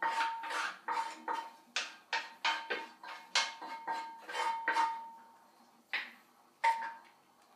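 Metal cookware clanging: a utensil knocking against a metal pan in quick, uneven strikes, each with a short ringing tone. The strikes stop about five seconds in, and two more knocks follow near the end.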